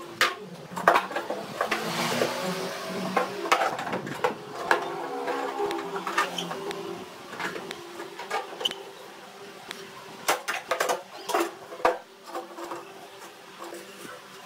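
Steel pipe clamps being handled on a wooden workbench: irregular metal clanks and knocks as the pipes and clamp jaws are moved and set against a wooden tabletop frame, with scraping and sliding in between.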